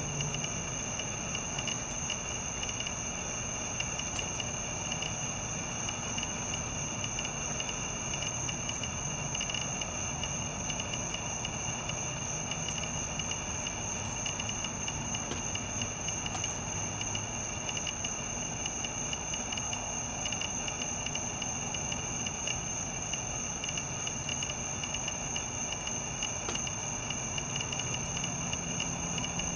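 Steady chorus of night insects, such as crickets, giving a continuous high-pitched trill.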